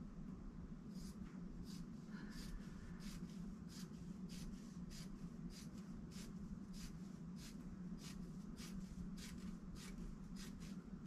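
Scissors snipping through fusible quilt batting: a long run of quick cuts, about two or three a second. A steady low hum runs underneath.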